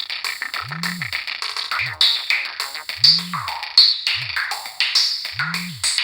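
Preloaded ringtone of a Samsung SGH-E720 phone playing an electronic tune: a drum-machine beat and synth melody over a deep bass note that rises and falls in pitch, sounding twice in every cycle of a bit over two seconds.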